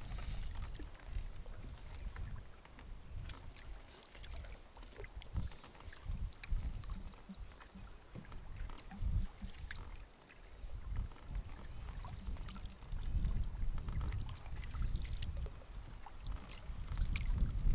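Canoe paddle strokes dipping and splashing in lake water every few seconds, over a low rumble of wind on the microphone.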